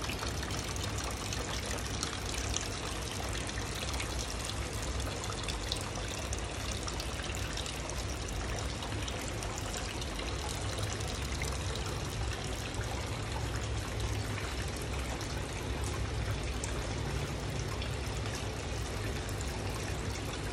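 Water from a bamboo-tube waterfall fountain pouring and trickling into an aquarium tank, a steady, unbroken splashing.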